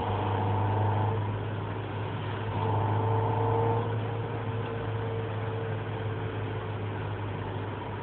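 Renault Scénic II 1.6 16V four-cylinder petrol engine running with a steady low drone, swelling briefly twice in the first few seconds. The owner puts the drone down to a defective catalytic converter, its broken ceramic remains vibrating and rattling inside.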